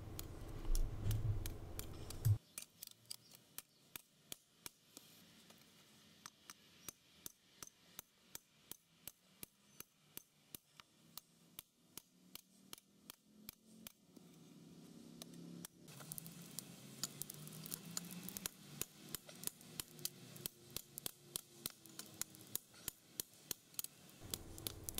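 Steady, even hammer blows, a little over two a second, on the steel tang of a file laid on a stone used as an anvil, drawing the tang out into a long handle.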